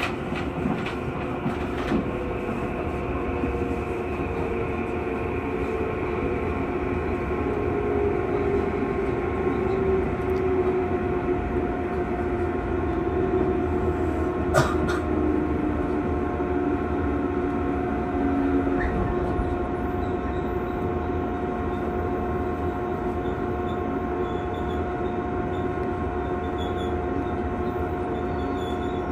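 Electric local train running on the Chūō Main Line, heard from inside the passenger car: a steady running rumble and hum, with a motor whine that slowly falls in pitch through the first half. A single sharp click comes about halfway through.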